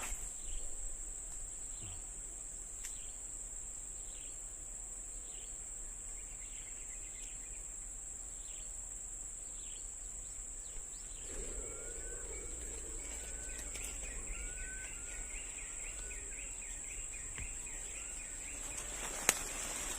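Outdoor ambience dominated by a steady, high-pitched insect drone, with birds chirping in the second half and a single sharp click near the end.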